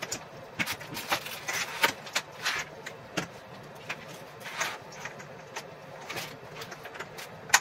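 Irregular clicks and light knocks of shoe-rack panels and their corner connectors being handled and pushed together during assembly, with some brief rustling between them.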